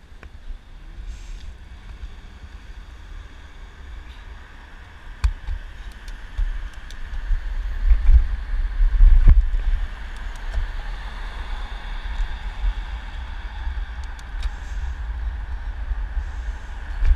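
Wind buffeting the microphone of a camera on a moving bicycle, with a low rumble that gusts louder around eight to ten seconds in, over a faint hum of car traffic. A couple of sharp knocks cut through, about five and nine seconds in.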